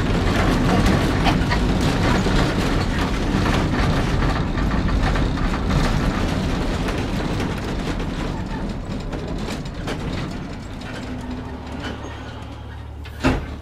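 Vintage Porto-built, Brill-type streetcar running on rails, heard from inside the wooden car: steady rolling and rattling with many small clicks and a strong low rumble. The noise fades over the last few seconds to a steady low hum as the car eases off, with one sharp click near the end.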